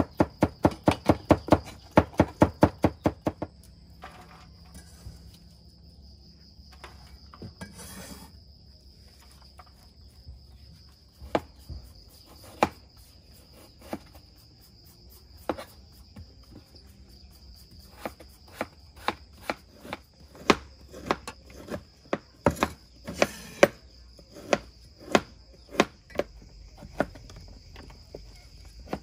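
Kitchen knife chopping vegetables on a wooden cutting board: a fast run of strokes, about five a second, for the first three seconds or so, then slower, irregular single cuts.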